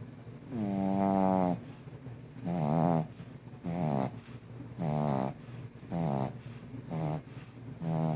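Puppy snoring in its sleep: a pitched, whiny snore on each breath, about one a second. The first snore is the longest and the later ones are shorter.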